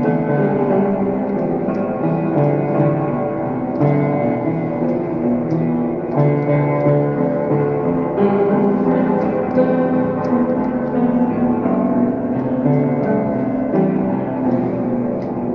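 Instrumental music: a piece of overlapping held notes, each lasting around half a second to a second.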